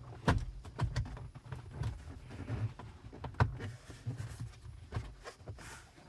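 Plastic car dashboard trim being handled and pressed into place: several sharp clicks and knocks, the loudest about three and a half seconds in, over low fumbling handling noise.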